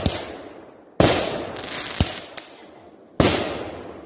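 Consumer aerial fireworks bursting overhead: sharp bangs about one and three seconds in, each dying away over about a second, with smaller pops in between.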